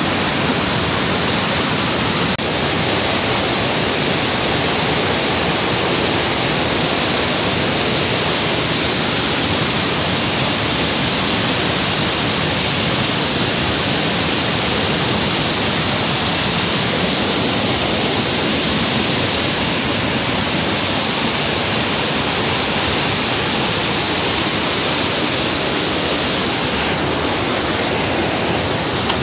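Loud, steady rush of flowing water, an even hiss with no breaks or changes.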